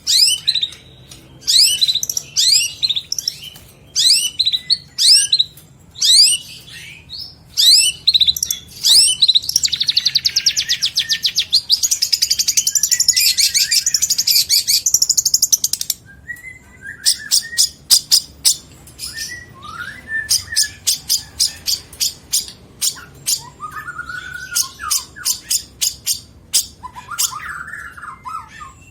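Long-tailed shrike (cendet) singing a varied song with mimicked phrases of other birds: first a run of quick, high, downward-sweeping notes, then a fast trill for about six seconds, then rapid clicking chatter broken by short lower warbles.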